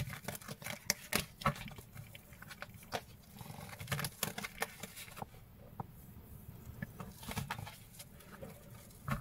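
A deck of oracle cards being shuffled by hand: faint, irregular soft clicks and slides of cards against one another.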